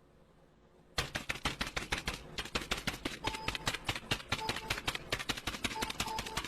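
Rapid clatter of typewriter-like key strikes, several a second, starting about a second in, with short beeps here and there among them.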